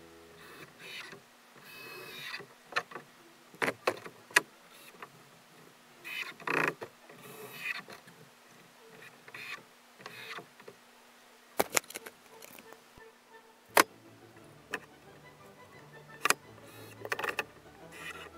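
Scattered sharp knocks and clicks with short scraping and rustling sounds between them, from hands working on a plywood box. A faint steady hum comes in about two-thirds of the way through.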